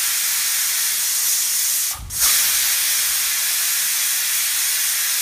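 Pressure cooker whistling: steam hissing hard out of the weight valve as the cooker vents at full pressure. The hiss is steady, with a short dip about two seconds in.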